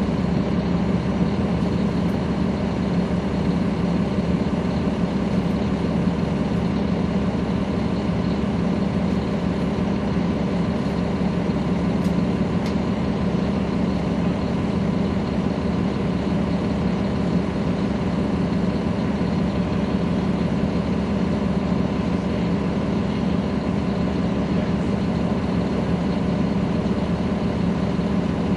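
Caterpillar C13 ACERT diesel engine of a 2009 NABI 40-foot transit bus running steadily at an even pitch, heard from the back seats inside the bus.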